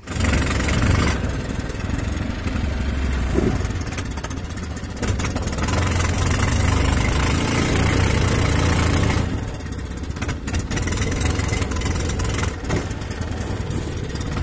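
Small boat engine driving a long-shaft propeller, running steadily under way. It runs a little harder through the middle and eases off about nine seconds in.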